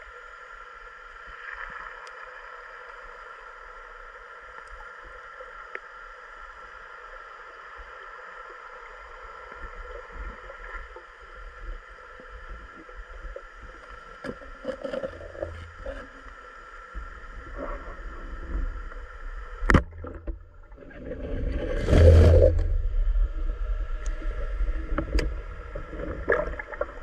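Water sloshing and gurgling around someone wading or fishing in a river, over a steady droning tone. A loud splash comes about 22 seconds in.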